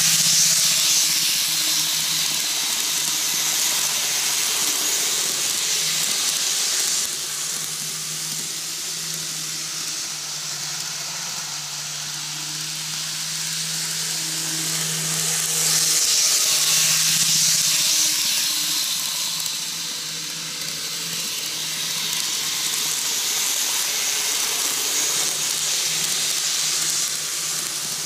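N-gauge model trains running on TOMIX double-track cant rail: a steady hiss of wheels and motors on the track over a low hum. It grows louder as a train passes close, at the start and again about sixteen seconds in.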